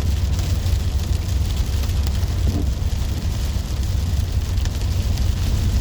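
Van driving on a rainy road: a steady deep rumble of engine and road noise, with a light hiss of rain and wet tyres over it.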